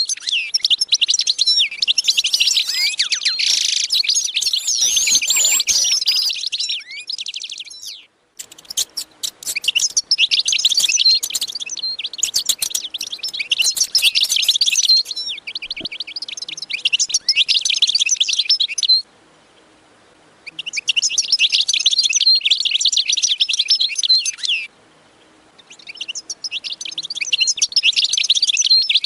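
Many small birds chirping and twittering rapidly and densely, high-pitched. The chirping breaks off abruptly three times, for a second or two each, and resumes.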